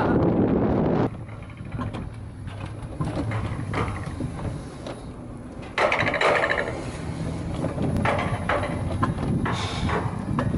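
Alpine coaster sled running down its track: a low rumble with scattered rattles and clicks, much quieter from about a second in and louder again from about the middle.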